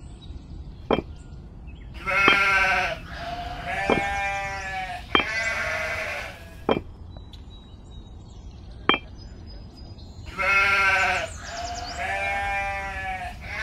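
Animal bleating: about five long, wavering calls, the last two close together, with a few sharp clicks between them.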